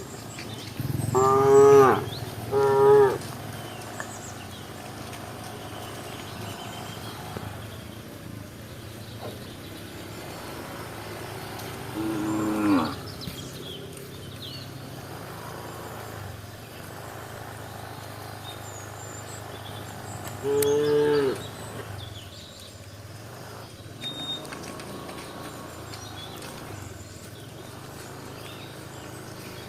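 Cows mooing: two calls close together, then single calls about twelve and twenty-one seconds in, each falling in pitch at the end.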